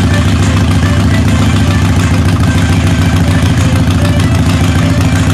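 Small motorcycle's engine idling steadily through a loud custom exhaust.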